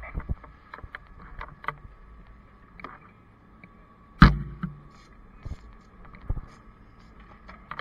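Fire engine running steadily at the fireground, with a single loud metallic clunk about four seconds in as a lever in the truck's side compartment is worked. Small clicks and knocks from handling the equipment come before and after it.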